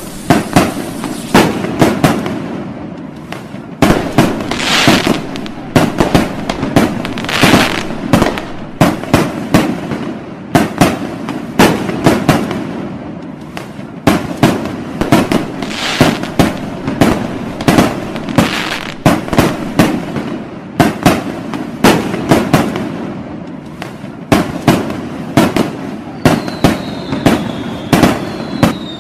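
Fireworks display: aerial shells bursting in frequent sharp bangs, several a second at times, over a continual crackle and the hiss of spark fountains. A thin whistle falls in pitch near the end.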